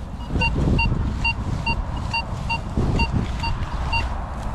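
Minelab Vanquish metal detector giving short, identical beeps about twice a second as its coil is swept back and forth over a buried target, over a steady low rumble.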